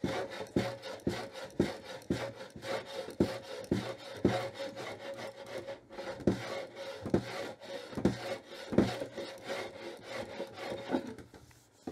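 Hand plane taking very fine shavings off the top edge of a wooden chest, in short strokes about two a second, levelling a high spot at one corner. The strokes stop near the end.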